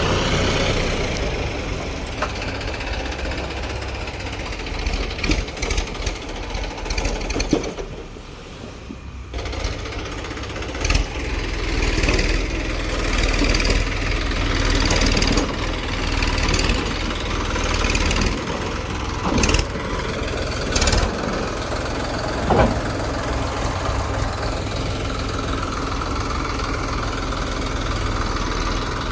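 Heavy diesel engine running steadily, with sharp knocks and clanks now and then and a brief drop in level partway through.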